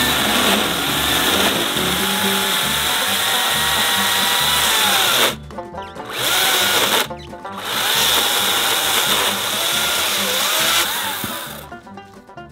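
Makita DUC353 18-volt battery chainsaw cutting through a log, its motor whine sagging and rising in pitch as the chain bites into the wood. It cuts out twice for a moment around the middle and falls away near the end, leaving quieter music.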